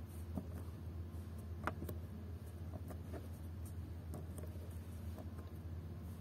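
Irregular light clicks of instrument-panel buttons being pressed one after another, the sharpest about a second and a half in, over a steady low hum.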